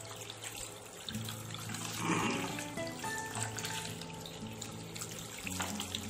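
Tap water running into a sink over raw quail being rinsed and rubbed by hand, with a louder splash about two seconds in.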